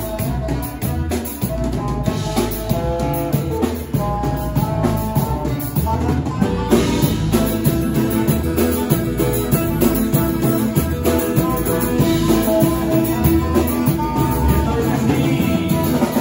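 Live band music: a twelve-string acoustic guitar and an electric bass playing over a drum beat.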